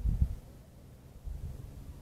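Wind buffeting a phone's microphone: an uneven low rumble that comes in gusts near the start and again in the second half.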